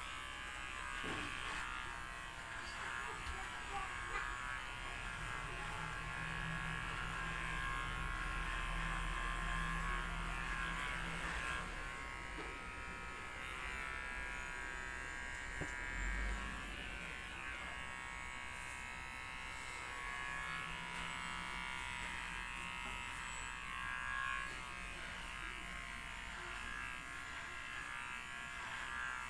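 Electric hair clippers running with a steady buzz while shaving a head down to stubble.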